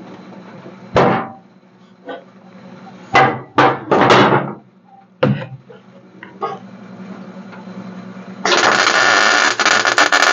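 Several sharp metal knocks and taps, then about two seconds of steady crackling hiss from a MIG welder laying a weld, starting and cutting off abruptly near the end.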